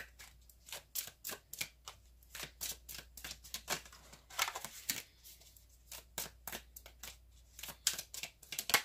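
Tarot cards being shuffled by hand: a steady run of quick crisp card slaps and flicks, about three or four a second, with a denser stretch of shuffling about four to five seconds in.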